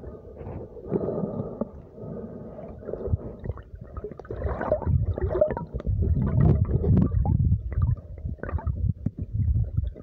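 Muffled, uneven underwater rumbling and gurgling picked up by a phone microphone submerged in lake water, with irregular knocks and sloshes, loudest about six to seven and a half seconds in.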